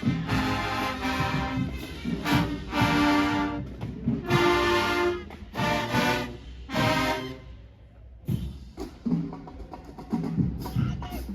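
Marching band playing brass and drums, with loud held brass chords in blocks of about a second, dropping to quieter, more scattered playing about seven and a half seconds in.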